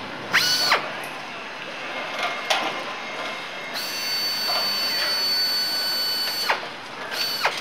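Handheld electric power tool whining in bursts: a short spin-up and spin-down about half a second in, a steady run of about three seconds from the middle that winds down, and another short burst near the end. Steady factory-floor background noise runs underneath.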